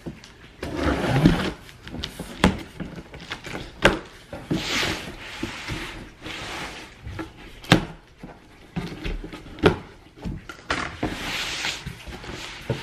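A large cardboard shipping box being opened by hand: three drawn-out scraping rips as its packing tape is cut and pulled, between sharp knocks and taps of the cardboard flaps.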